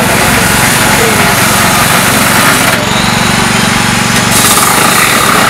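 Small portable petrol engine running steadily at a constant speed, an even, fast low drone.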